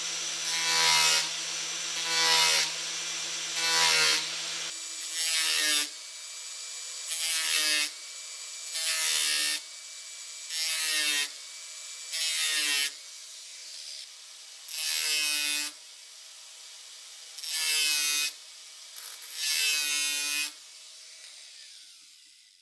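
Angle grinder with a thin cut-off disc running and dipping again and again into a stainless steel plate: a harsh grinding burst about every second and a half, with the motor whirring between them. The cuts are kept short so the steel does not heat up too much. The sound fades out near the end.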